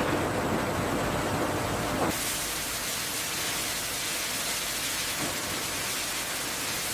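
Steady rushing hiss of food-processing line machinery. About two seconds in it shifts to a brighter, thinner hiss.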